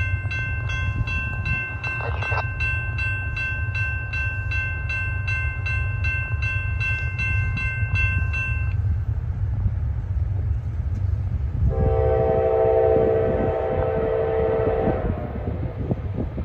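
A distant diesel locomotive horn on an approaching Norfolk Southern intermodal train sounds one long chord of about three seconds, a little past the middle. Before it, a high, rapidly repeating electronic ringing stops about nine seconds in. A steady low rumble runs underneath.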